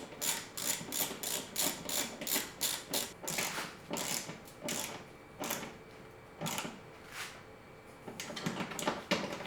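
Hand ratchet clicking in quick, even strokes while driving a greased bolt through the Jeep's tub for a rock slider, about three strokes a second, thinning out after about five seconds.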